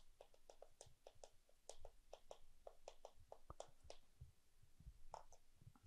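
Faint chalk on a chalkboard as characters are written: a run of short, irregular taps and scrapes, several a second.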